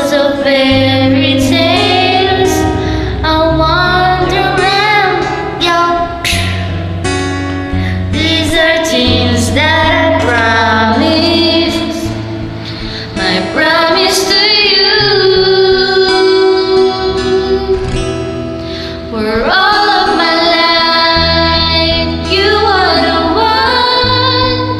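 A woman singing a slow love song over a karaoke backing track, her voice gliding and holding long notes.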